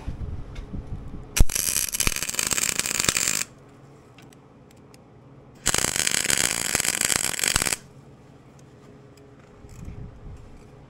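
Electric arc welding: two crackling tack welds of about two seconds each, each starting and cutting off abruptly, with small clicks and rattles of metal between them.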